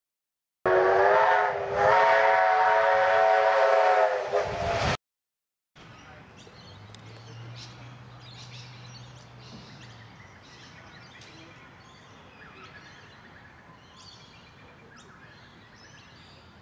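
Steam whistle of a Victorian Railways K-class steam locomotive giving one long blast of several notes sounding together, cut off abruptly after about four seconds. Then quieter outdoor background with birds chirping.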